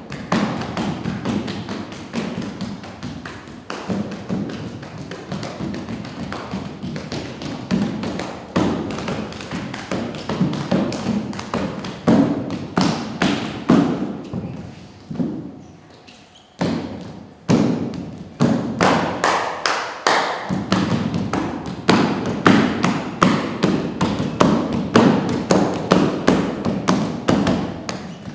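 Dense, irregular thumps and taps, several each second, easing into a brief lull a little past halfway before picking up again with a couple of sharp hits.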